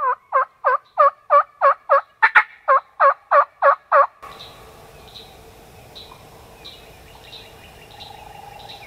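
A run of about a dozen evenly spaced turkey yelps, about three a second, stopping about four seconds in. Faint bird chirps and insects follow.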